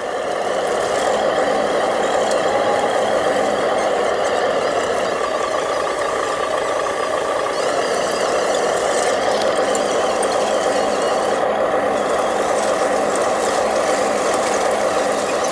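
Radio-controlled model dump truck running, a steady mechanical engine-like sound that holds at an even level.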